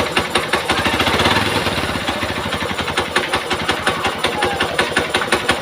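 Hero Xpulse 200 4V BS6 single-cylinder engine running at idle with a regular, repeating ticking knock over the engine note, swelling slightly about a second in. This is the abnormal engine noise the bike is being checked for.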